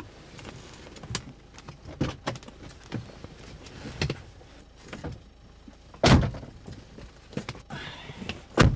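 A car passenger door being handled: several light clicks and rustles, then the door shut with a heavy thump about six seconds in, and another thump near the end.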